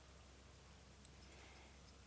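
Near silence over a faint low hum, with one sharp crackle about a second in from charcoal embers cooling in a small wood-burning camp stove after the fire.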